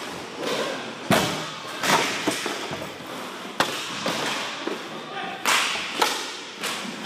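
Inline hockey scramble at the goal: about half a dozen sharp clacks and thuds of sticks and the puck hitting against sticks, pads and the net, with players' voices.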